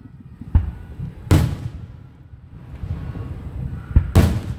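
Fireworks bursting overhead in a series of bangs, each trailing off with an echo: a smaller one about half a second in, a loud one just over a second in, then a sharp crack and a loud bang close together near the end.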